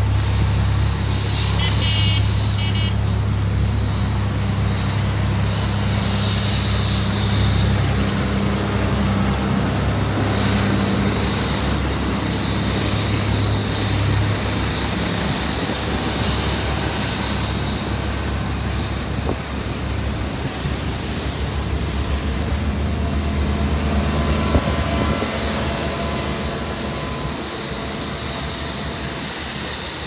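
Asphalt compaction rollers running on fresh asphalt, a pneumatic-tyred roller and a tandem steel-drum roller, their engines making a steady low drone. The drone is strongest in the first half and eases later on.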